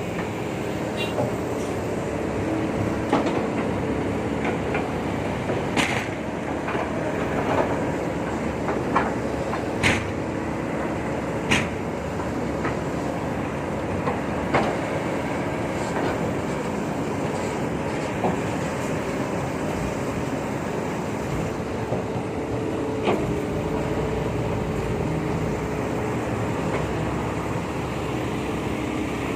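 Heavy dump truck engines running steadily, with a dozen or so short sharp clacks scattered through it.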